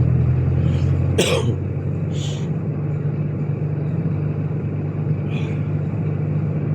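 Diesel car engine running with a steady low hum, and a short cough about a second in.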